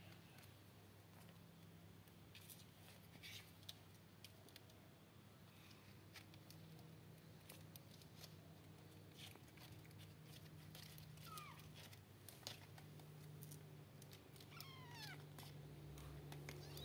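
Faint, high, falling mews of four-week-old kittens: one or two short mews about two-thirds of the way in, then a quick run of several near the end. Underneath are a steady low hum and scattered small clicks.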